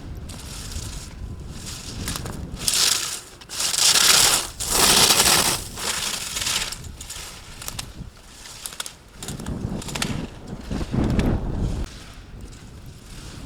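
Ski edges scraping and carving on hard-packed snow as a slalom racer turns past, in rushing swells, the loudest about three to six seconds in and another near the end. A low rumble runs underneath.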